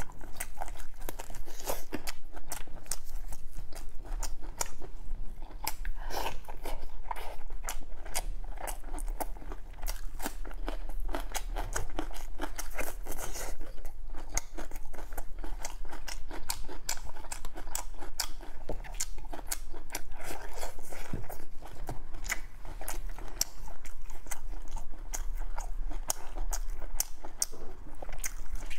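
Close-miked chewing and biting of braised beef on the bone: wet chewing with a dense run of sharp crunches and clicks as meat and gristle are torn off and bitten.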